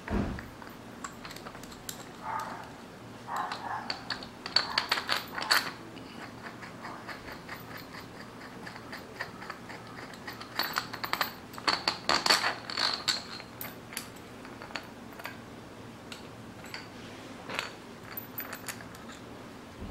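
Metallic clicks and clinks of a wrench working the nut on a home-made threaded-rod piston pin puller, drawing a piston pin. The clicks come in two quick runs, about four and about eleven seconds in, with lighter handling clicks between.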